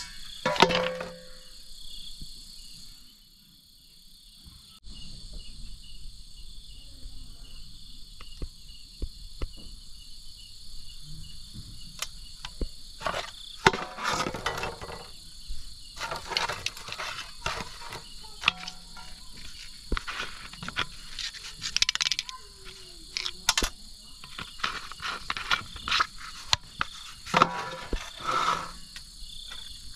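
Steady night-time chorus of crickets chirring. Over it come close, irregular handling sounds: plastic bottles knocking, crinkling and scraping against an aluminium basin, with a loud ringing knock near the start.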